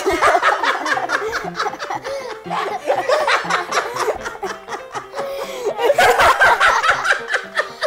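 A man and children laughing hard together in a long, continuous fit of laughter, with light background music under it.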